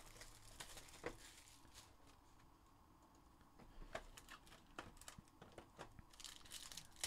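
Faint handling noise as a trading card box is opened: a few light clicks and taps of cardboard, then a plastic wrapper crinkling for the last second or so.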